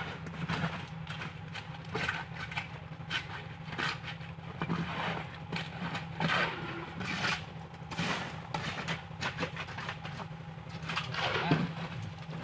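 Engine running steadily, with irregular scraping and knocking of concrete being worked during a road pour.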